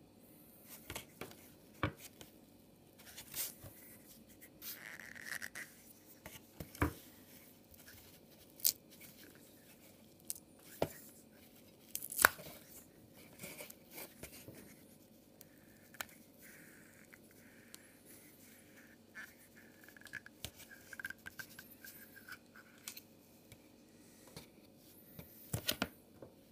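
Hands twisting and pulling the rubber boot off a Honda Fit pencil-type ignition coil: faint rubbing and scattered sharp clicks, the sharpest about halfway through, with drawn-out rubber squeaks around five seconds in and again for several seconds in the second half.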